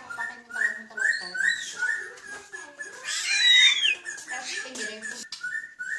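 A pet bird calling: a string of short repeated chirps, a few a second, with a loud falling whistle about three seconds in.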